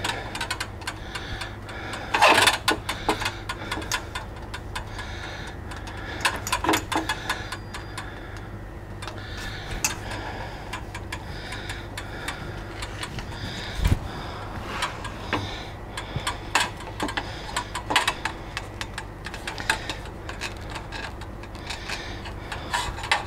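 3/4-inch copper pipe being worked through a hand tube bender at a vise: irregular clicks, knocks and rattles of the copper tubing against the tool and bench, with a heavier thud about fourteen seconds in, over a steady low hum.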